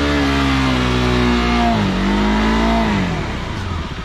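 Adventure motorcycle engine revving hard under load as the bike churns through mud. It holds high revs, dips briefly about two seconds in, then the revs fall away near the end.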